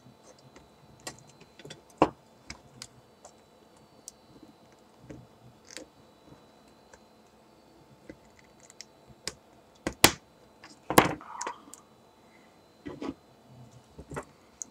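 Irregular small clicks, taps and knocks of hands handling an opened iPod Color's metal back case, battery and pry tool on a wooden bench during a battery swap. A few sharper knocks stand out, the loudest about ten seconds in.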